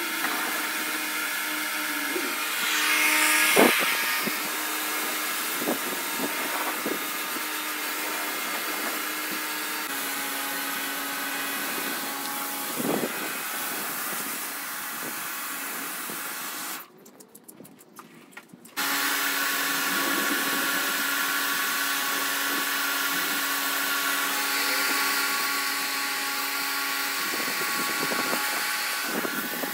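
Electric Kärcher pressure washer running with a steady motor hum, and the hiss of its jet blasting concrete paving. It breaks off for about two seconds just past the middle, then runs again. A few brief knocks come in between.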